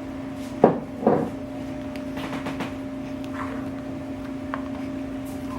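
Two knocks about half a second apart, then a few faint clicks, over a steady hum.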